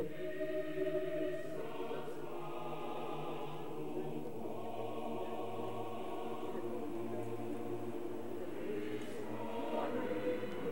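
Choral music: a choir singing slow, held chords.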